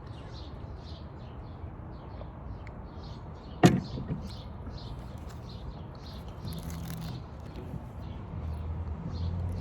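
Outdoor background with small birds chirping over and over, with one loud sharp click or knock about three and a half seconds in.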